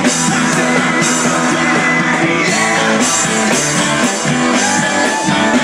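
Rock band playing live.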